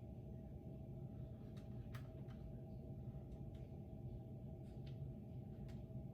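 Hampton Bay Littleton ceiling fan running with a steady low motor hum, with a few faint clicks scattered through it.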